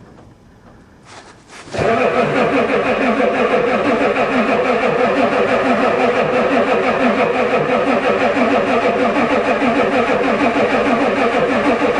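Starter motor cranking a Ford diesel truck engine, which turns over in a steady even rhythm without firing. It starts about two seconds in. The engine is cold, and the owner thinks the glow plug controller isn't working.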